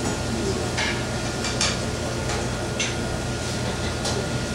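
Metal utensils and cookware clinking and scraping, about six light separate clinks, over a steady room hum.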